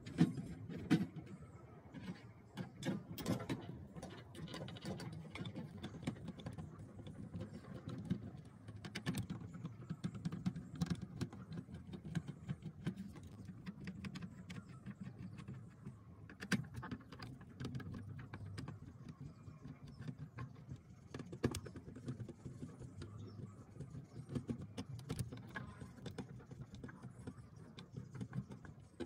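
Screwdriver unscrewing small screws from a stereo's circuit board in its plastic case: scattered light clicks and taps of the tool, screws and plastic, over a steady low background rumble.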